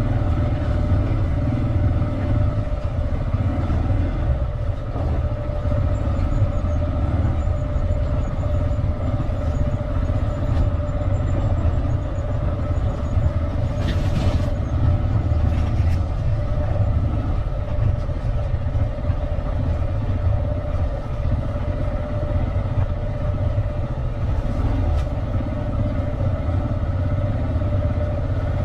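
Vehicle engine running at a steady pace while riding, with a dense low rumble under a steady engine tone. There is a brief swish about halfway through.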